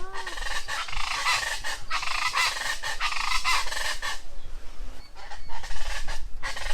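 A bird calling over and over in a dense run of calls lasting about three seconds, followed by sparser, weaker calls.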